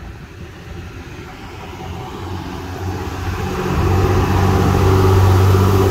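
Engine of a large truck growing louder as it approaches and passes close by, a deep steady hum that is loudest from about four seconds in.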